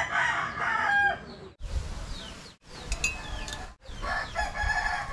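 A rooster crowing, once at the start and again about four seconds in, with small birds giving short, falling chirps in between. The sound drops out abruptly a few times where clips are cut together.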